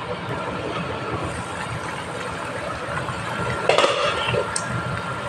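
Thick curry gravy bubbling in a kadai over a gas burner, under a steady rushing noise, with one short stir or clink of the ladle a little under four seconds in.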